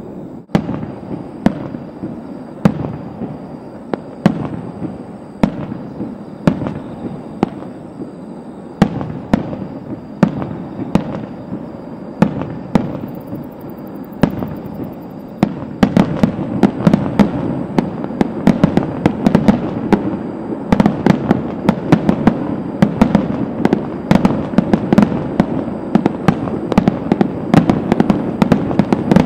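Fireworks display heard from a distance: sharp bangs and cracks about once a second over a steady low din. About halfway through they quicken into a dense, louder volley of rapid bangs, like a finale barrage.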